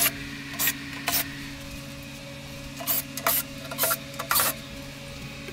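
Cordless driver backing out the lid screws of a battery case in short bursts, about seven in all, over a steady low hum.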